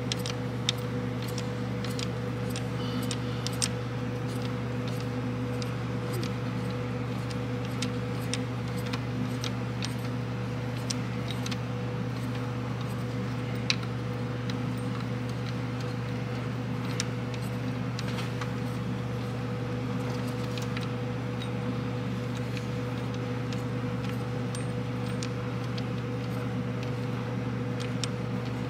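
Scattered, irregular small metallic clicks and clinks as a 15 mm wrench turns out the top idler pulley bolt, over a steady low hum.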